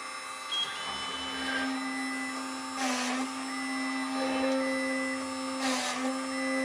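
A rotary-engraver spindle on a small CNC PCB drilling machine running with a steady whine. Stepper motors whine in short runs as the head moves between holes, and twice, about three seconds apart, a drill plunges into the circuit board with a loud rasp while the spindle's pitch dips briefly.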